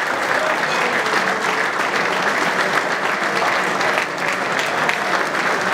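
A roomful of dinner guests applauding steadily, a welcome for a newly introduced guest.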